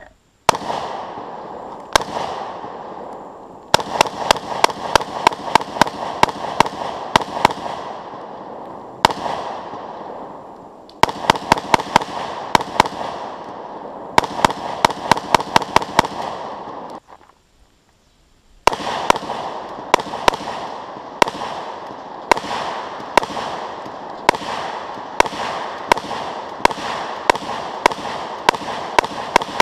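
Rifle fired rapidly in semi-automatic strings of about two to three shots a second, with short pauses between strings. Each crack is followed by a ringing echo. Partway through, the shooting stops for a second or two, then resumes.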